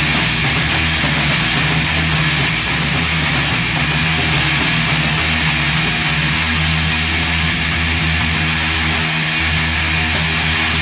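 Loud noise-rock music: distorted electric guitar over low bass notes that shift in pitch, all under a steady, dense wall of noisy distortion.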